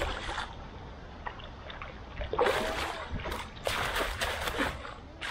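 Carp splashing at a pond's surface: several rough bursts of splashing that start about two seconds in and last about two and a half seconds.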